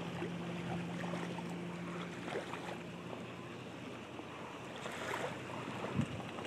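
Outdoor wind noise and lapping lake water at the edge of a boat ramp, with the low steady hum of the pickup truck's engine that fades out about three seconds in, and a brief knock near the end.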